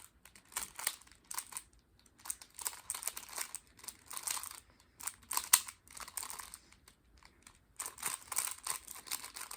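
A plastic 3x3 Rubik's cube being turned fast in a speedsolve: quick flurries of clicking and scraping as the layers snap round, broken by short pauses.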